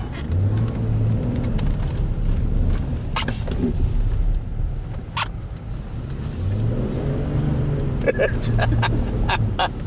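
Car engine revving as the car is driven hard through a 180-degree spin on a snowy road, its pitch rising about half a second in and again from about two-thirds of the way through. Sharp clicks come now and then, several near the end.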